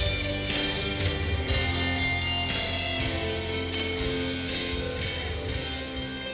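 Music with guitar, sustained notes and a regular pulse, slowly fading in level.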